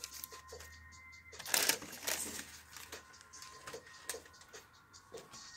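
Tissue paper rustling and crinkling as a sneaker is lifted out of its shoebox, with light clicks and taps from handling. The loudest rustle comes about one and a half seconds in.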